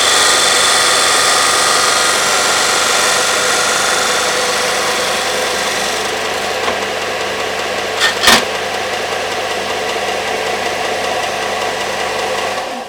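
Belt sander running steadily with a motor hum and dense grinding hiss that eases somewhat after about six seconds. Two sharp knocks come close together about eight seconds in.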